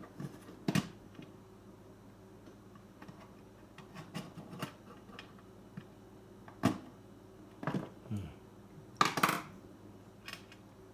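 Scattered clicks and knocks of hard plastic parts and small tools being handled while a car radio's LCD screen unit is pried apart, the loudest cluster about nine seconds in.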